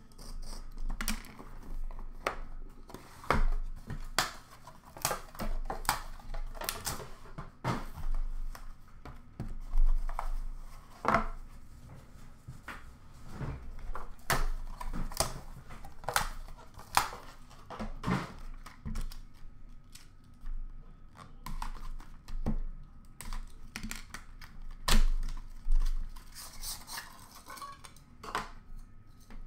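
Cardboard hockey-card boxes being opened and handled on a glass counter: many light knocks, taps and clicks as lids and inner boxes are lifted out and set down. A soft crinkle of a card pack's wrapper comes near the end.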